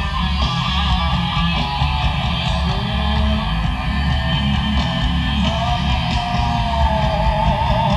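A live metal band playing an instrumental passage: distorted electric guitar over bass and drums, loud and dense. A wavering high melody line rises over the band in the last few seconds.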